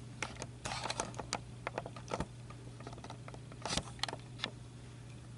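Scattered small clicks and taps from the camera being handled, over a steady low hum.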